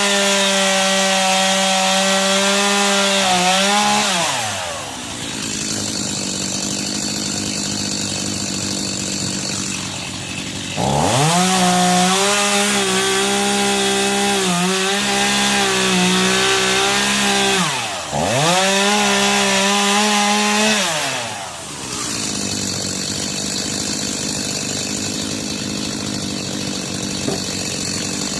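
Two-stroke chainsaw running at full throttle, dropping to a rough idle about four seconds in, revving back up for two more long spells with a short dip between them, then falling back to idle for the rest.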